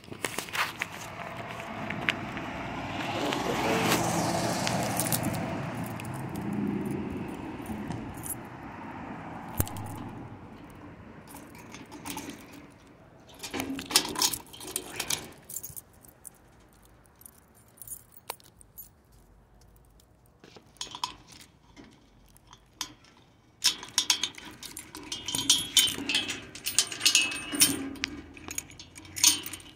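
Light metallic jangling and clinking in several bursts, about half way through and again near the end, after a steady noise that swells and fades over the first dozen seconds.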